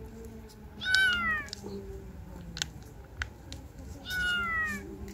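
Stray cat meowing twice, a few seconds apart; each meow falls in pitch.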